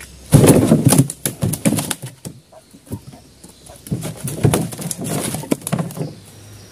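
A freshly caught catfish thrashing and flapping on the line, slapping against the wooden boat in two bouts of rapid knocks and slaps: one near the start lasting about two seconds, one from about four to six seconds in.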